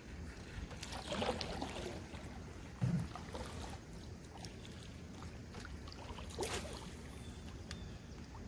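Canoe moving on the water, with scattered light knocks and splashes and one low thump about three seconds in.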